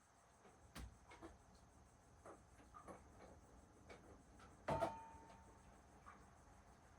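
Near-quiet room with scattered faint clicks and small knocks, and one louder knock with a short ringing tone just under five seconds in.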